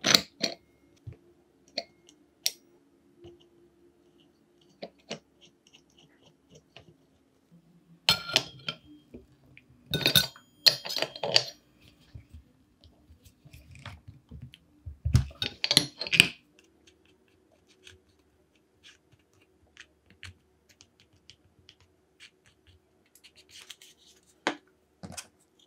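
Small metal parts clicking and clinking as a thin steel circular saw blade is fitted onto its shaft and the nut is tightened with small open-end wrenches, in a few busier clusters of clinks and taps rather than a steady run, over a faint steady hum.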